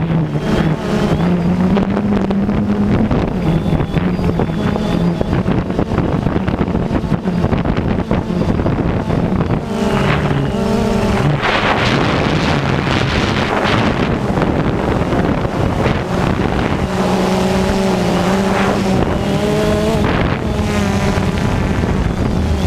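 DJI Phantom 2 quadcopter's motors and propellers whirring in flight, the hum shifting in pitch as the drone manoeuvres. Wind noise on the microphone swells about halfway through.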